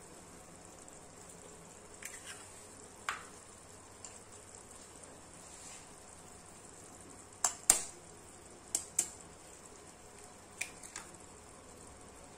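Sharp clicks of a kitchen knife blade striking eggshells to crack them, several coming in quick pairs, over the faint steady sizzle of onion gravy simmering in a frying pan.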